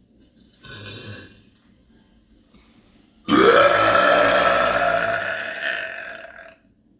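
A person's long, loud burp, lasting about three seconds and starting suddenly a little past three seconds in, rising in pitch at first and then held steady. A short, much quieter sound comes about half a second in, before it.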